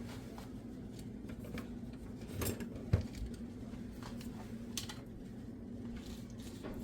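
A serving utensil scraping and tapping in a baking pan as hot tater tot casserole is scooped out, with a sharp clink about three seconds in and a lighter one near five seconds. A steady low hum runs underneath.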